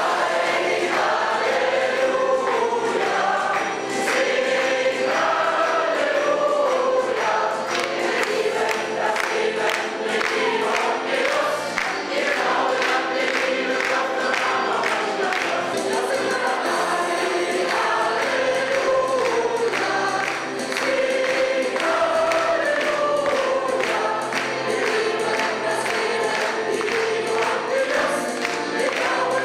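Church congregation singing a song together, accompanied by a live band, with a steady beat under the voices.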